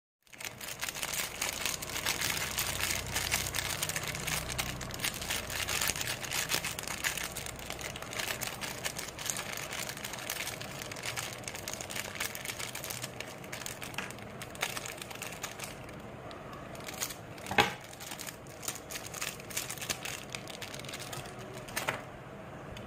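Clear plastic wrapper of a tube of Center Fruit ball-shaped gum crinkling as it is handled and opened. The crinkling is dense over the first dozen seconds, then thins to scattered crackles, with a sharp click about 17 seconds in and another near the end.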